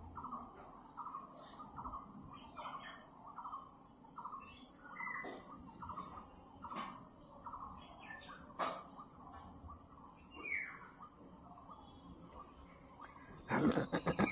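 Faint chirping calls repeating about twice a second, with a few higher chirps among them, from a bird or similar small animal. About a second before the end comes a quick cluster of louder clicks.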